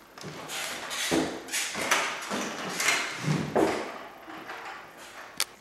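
An irregular run of knocks, scuffs and footfalls as someone clambers over rattan chairs, with a heavier thud about three seconds in and one sharp click near the end.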